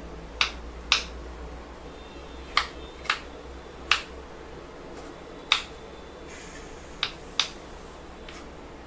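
Kitchen knife dicing a green bell pepper on a wooden cutting board: about nine sharp knocks of the blade striking the board, irregularly spaced.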